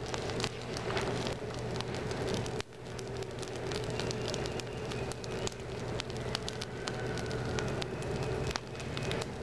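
Fire of sticks and leaves burning, crackling with many sharp pops and snaps over a steady hiss.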